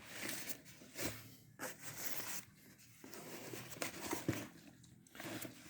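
Rustling and scraping of a cardboard box being handled and turned over, in irregular short bursts.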